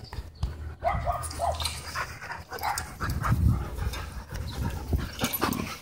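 Dogs panting close by, with a few short, high vocal sounds, about a second and two and a half seconds in.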